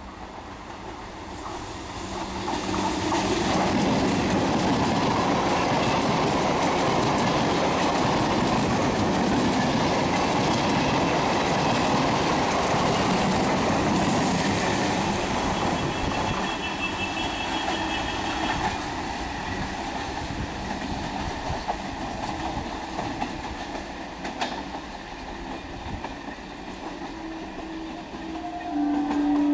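ICF conventional EMU local train passing close by at speed, with a dense rush of wheel-on-rail noise and clickety-clack that builds over the first few seconds and eases off in the second half. A brief high squeal sounds from the wheels about halfway through, and a train horn starts blowing near the end.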